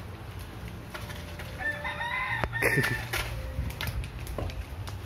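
A single drawn-out bird call about two seconds in, lasting a little over a second and falling in pitch at the end, over a steady low hum.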